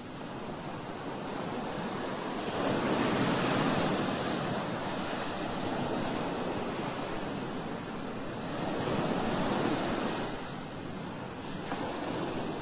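Ocean surf: waves breaking and washing in as a steady rushing noise, swelling louder about three seconds in and again about nine seconds in.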